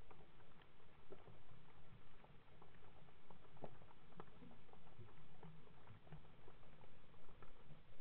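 Underwater ambience: a dense, irregular crackle of small clicks over a low, uneven rumble, as heard through an underwater camera.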